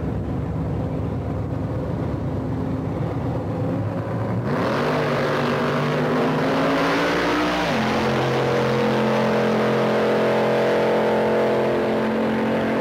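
1967 Ford Mustang drag car's engine running at the starting line, then launching about four and a half seconds in: the revs climb steeply, drop suddenly at a gear shift about three seconds later, and the engine pulls on steadily as the car runs down the drag strip.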